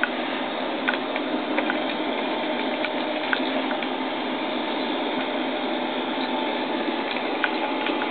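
Steady rushing wind noise on a camcorder microphone high up on a parasail, played back through a television speaker, with a few faint clicks.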